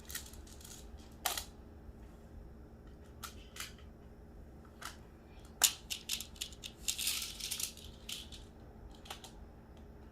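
Plastic magnetic building tiles clicking and clacking as they are handled and snapped together, in scattered separate clicks with the loudest a little past halfway and a short rattling clatter around seven seconds in.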